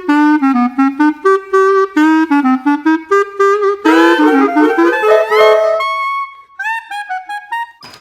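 A clarinet playing a quick melody of short detached notes. It turns fuller and rougher in the middle and finishes on a few higher held notes, then stops abruptly.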